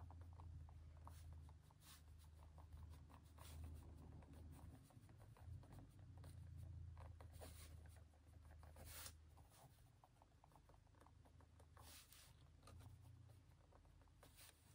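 Pen writing on notebook paper: faint scratching in short, irregular strokes.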